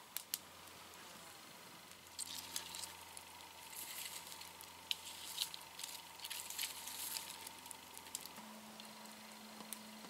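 Small wood campfire crackling, with quick irregular pops and snaps, most of them between about two and eight seconds in. Under it runs a faint, steady low hum that steps up in pitch near the end.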